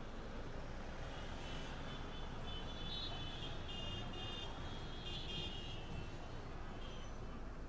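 Busy city street traffic ambience: a steady rumble of vehicles, with thin high-pitched tones coming and going from about a second and a half in to past five seconds.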